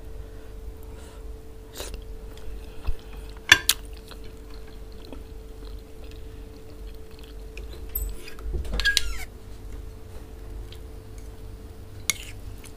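Close-miked eating sounds: chewing and wet mouth sounds, with ceramic dishes being handled as okra stew is tipped and scraped from a square serving dish onto a plate of rice. A sharp clink comes about three and a half seconds in, and a longer scrape comes around nine seconds.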